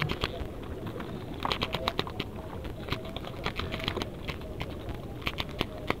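Nylon gill-net mesh crackling and clicking as gloved hands work a lobster free, with clusters of sharp ticks about a second and a half in and again near the end, over a steady low rumble.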